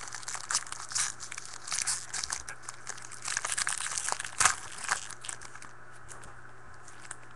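Trading cards and their pack wrappers being handled close to the microphone: a string of crinkles and light clicks that stops about five and a half seconds in, over a faint steady low hum.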